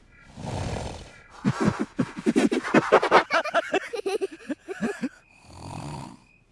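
Cartoon snoring: a breathy draw, then a long rattling snore of rapid fluttering pulses lasting over three seconds, then another breath.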